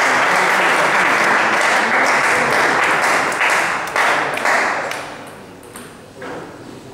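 Spectators applauding in a sports hall after a table tennis point, a steady clapping that dies away about five seconds in. After it, a couple of light taps from the ball or paddle.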